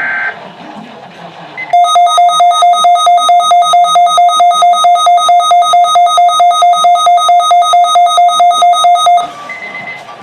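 Weather radio alert alarm sounding for Weather Radio Canada's weekly alert test. It is a loud, rapid electronic beeping, about five beeps a second, that starts about two seconds in and cuts off after about seven and a half seconds.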